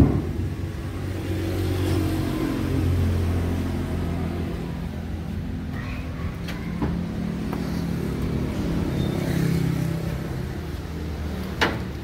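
Diesel engine of a container tractor truck idling steadily, its low hum swelling and easing a little. There is a knock at the start and a sharp click near the end.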